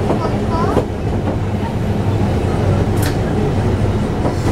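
Oigawa Railway 16000 series electric multiple unit running, heard from inside the driver's cab: a steady running hum with one sharp click about three seconds in.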